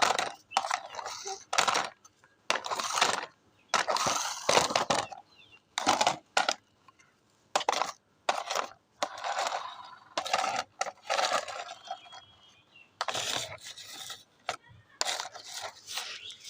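Irregular clatter and scraping of small hard objects: a string of short, uneven bursts with brief quiet gaps between them.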